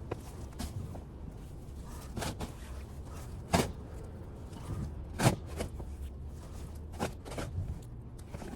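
Snow shovel striking and scraping through heavy, wet snow: a series of sharp knocks about every second and a half, each one a stroke of the shovel.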